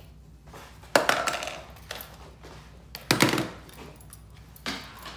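Three sharp knocks of plastic toy police gear being set down on a hard tabletop: about a second in, about three seconds in (the loudest, with a duller thud), and near the end.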